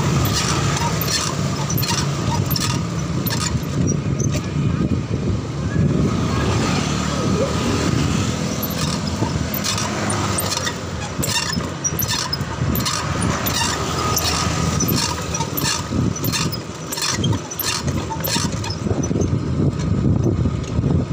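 Riding a bicycle, heard from a camera on its handlebar: a steady rumble of tyres and wind with frequent irregular clicks and rattles from the bike, and motorbikes running nearby.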